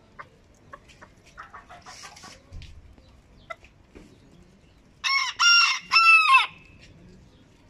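Barbu d'Anvers bantam rooster crowing once, about five seconds in: a high crow of about a second and a half, broken into three parts. Faint scattered clicks come before it.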